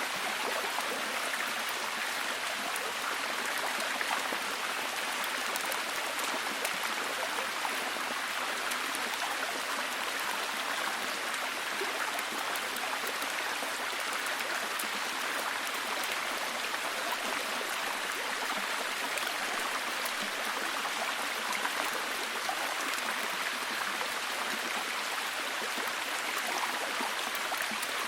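Heavy rain falling steadily: an even hiss with fine ticks of individual drops, and no change in level.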